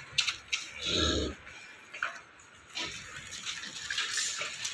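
A short, low sound from a farm animal about a second in, among a few sharp clicks.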